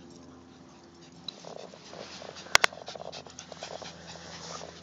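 A dog panting close to the microphone, quick short breaths starting about a second in. About halfway through there are two sharp clicks in quick succession, the loudest sounds.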